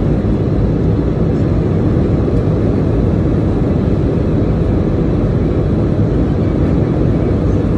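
Jet airliner cabin noise at a window seat over the wing: the engines and rushing airflow make a steady, even, low-pitched drone with no change.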